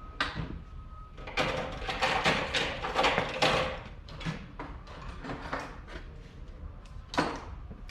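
Hand tool working a hose clamp on a transmission cooler hose: a run of rapid metallic clicking and rattling for about two seconds, then scattered ticks and one sharp click near the end.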